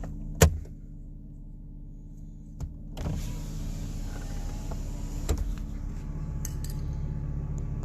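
Car engine idling, heard from inside the cabin as a steady low hum. A sharp click comes about half a second in and a fainter one about two and a half seconds in. From about three seconds a steady hiss joins the hum.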